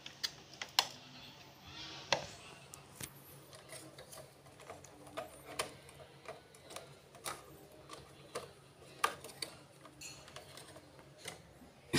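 Irregular small clicks and taps of plastic wire connectors being handled and pressed back into their sockets on an air conditioner indoor unit's control board, reseated to rule out a loose connection behind a swing louvre motor that will not move. A faint steady low hum runs underneath.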